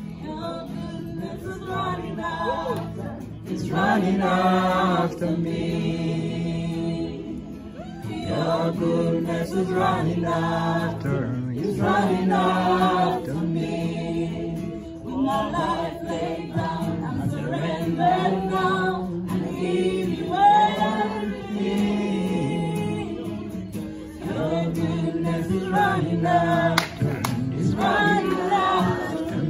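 A group of voices singing a gospel worship song over steady low sustained notes.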